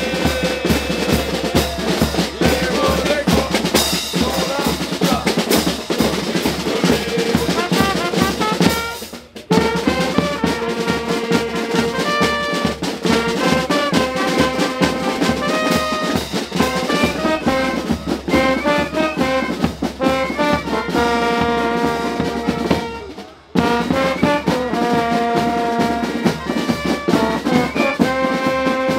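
Street fanfare band playing a march: trumpets and other brass carrying the tune over snare drums and clashed cymbals. Twice the music breaks off for a moment before starting up again.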